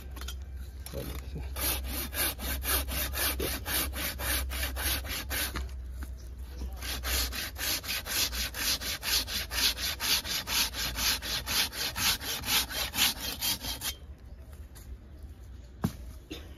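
Hand pruning saw cutting through a green Celtis australis (nettle tree) trunk with quick back-and-forth strokes, about three a second, in two runs with a short pause about six seconds in. The sawing stops a couple of seconds before the end, followed by a single sharp knock.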